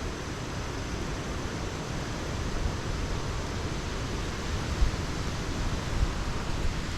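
Typhoon wind and rain: a steady rushing hiss, with gusts buffeting the microphone in low thumps now and then, strongest about five and six seconds in.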